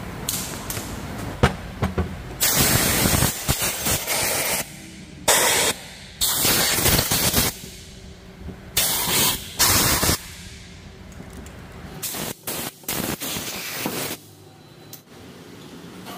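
Repeated short blasts of pressurised spray hissing, seven or eight in all, some about half a second and some over a second long, with quieter gaps between them.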